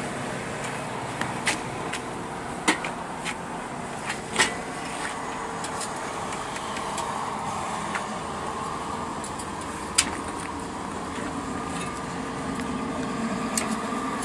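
Steady background noise with a faint hum, broken by a few sharp clicks and knocks; the loudest click comes about ten seconds in.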